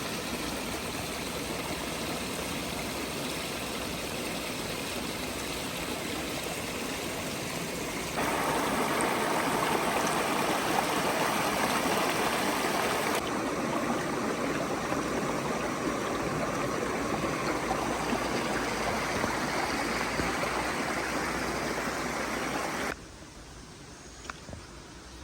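Running water of a rainforest creek, a steady rushing. It grows abruptly louder about eight seconds in and drops away sharply near the end.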